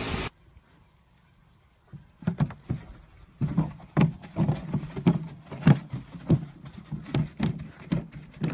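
A run of dull, uneven thumps, about two or three a second, starting about two seconds in.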